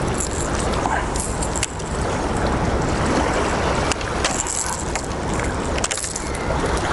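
Steady rushing of river water, with a few faint clicks from handling tackle.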